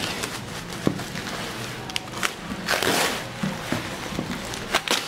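A cardboard box being cut and torn open with a hand tool: a run of short crackling scrapes, rips and ticks of tape and cardboard, the longest rip near the middle.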